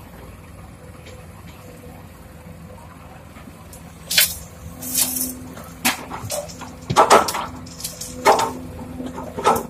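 Sumitomo SH210 hydraulic excavator's diesel engine running steadily, then from about four seconds in its bucket dumps soil and clods into a steel dump-truck bed, making a series of loud crashes and pouring thuds.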